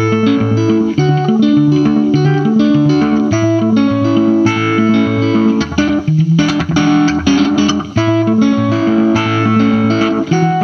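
Instrumental intro of a garage rock song: a guitar-led band playing a riff of separate picked notes, each lasting a fraction of a second, with a brief dip in the playing about six seconds in.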